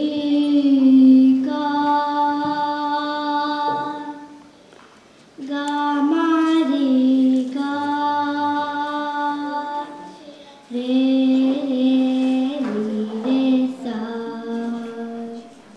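Young girl singing Hindustani raga Yaman into a microphone: long held notes in phrases of a few seconds, with short breaks about four and ten seconds in.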